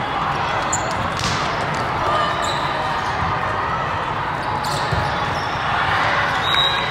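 Steady hubbub of a large indoor volleyball hall: many voices chattering, with a few sharp smacks of volleyballs being hit, two of them standing out about a second in and near five seconds.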